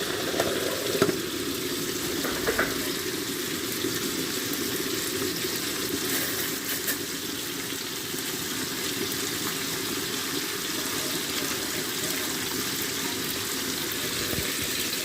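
Pork belly and kimchi stew cooking in a pan, a steady bubbling sizzle with a couple of light knocks in the first few seconds.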